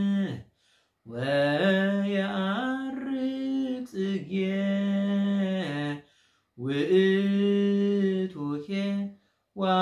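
A man chanting an Orthodox Tewahedo hymn in Ge'ez, unaccompanied, in long held notes that glide slowly in pitch. The chant is broken by short pauses for breath about half a second, six seconds and nine seconds in.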